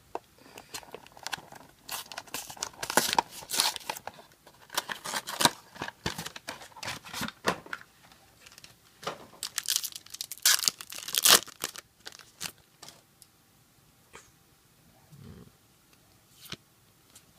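A trading-card booster pack wrapper being torn open and crinkled, in irregular bursts of tearing and rustling that fill the first twelve seconds and then thin out to a few faint rustles.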